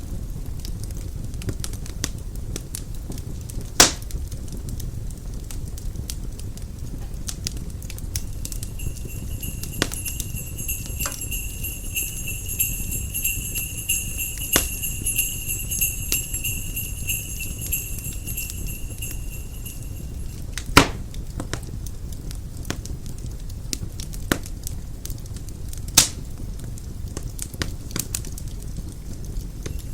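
Fireplace fire crackling, with a few sharp pops over a low steady rumble. Sleigh bells jingle continuously for about ten seconds in the middle.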